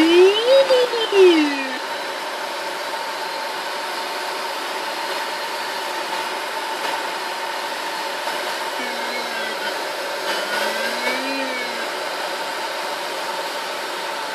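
Steady rush of airflow inside a glider cockpit, with the electronic tone of a Cambridge XK10 audio variometer gliding up and down in pitch as the climb rate changes. The tone is heard for the first couple of seconds and again about nine to twelve seconds in.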